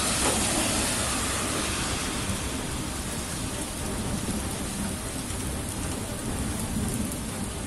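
Heavy rain pouring steadily in a thunderstorm, with rolling thunder rumbling underneath, loudest near the start and easing off slightly.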